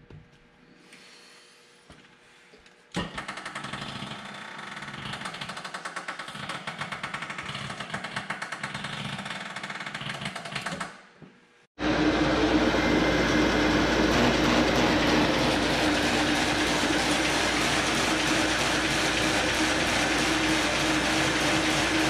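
MBO T49 buckle paper folder running at full speed on a letter fold: a loud, steady mechanical running noise with a constant hum, starting abruptly about twelve seconds in. Before that, from about three seconds in, a quieter machine noise with a fast, even rattle.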